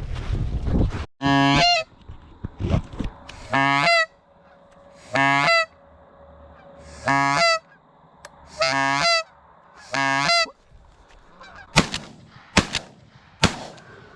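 Six loud, evenly spaced goose honks, each a short call rising then dropping in pitch at its end, about one and a half seconds apart. Three sharp knocks follow near the end.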